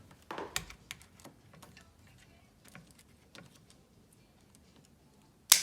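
Light, irregular clicks and taps of small metal bicycle parts and tools being handled while a shift cable is fitted and pulled tight, with one sharper click near the end.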